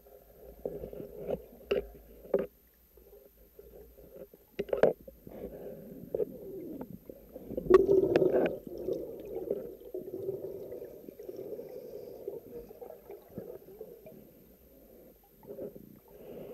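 Underwater sound picked up through a camera housing: a low, steady bubbling and gurgling of water, broken by a few sharp clicks and knocks, with the loudest cluster about eight seconds in.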